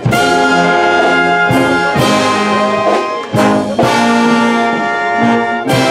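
Brass band playing in full sustained chords, trumpets, saxophones, clarinets and low brass together, coming in right at the start and marked by sharp drum and cymbal hits every second or so.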